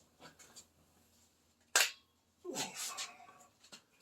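Handling sounds as a propane tank is brought over and set in place: a sharp knock about two seconds in, then a short scraping sound that falls in pitch.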